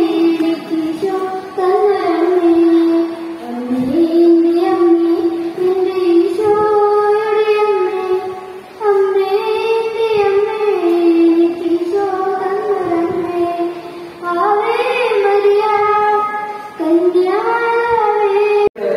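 A boy singing solo into a handheld microphone, long held melodic phrases with short breaths between them and no accompaniment. The singing cuts off abruptly near the end.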